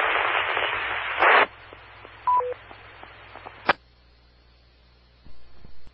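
Amateur radio repeater audio: a rush of static that ends in a short burst about a second and a half in, then a two-note courtesy beep, high then lower. A click follows as the repeater's carrier drops, leaving faint hiss.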